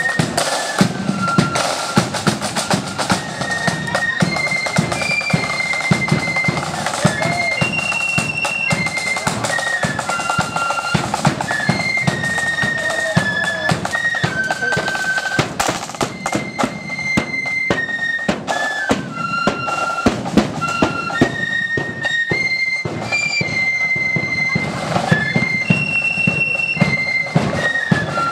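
Marching flute band playing a tune in unison on flutes, with snare drums rattling and a bass drum beating time.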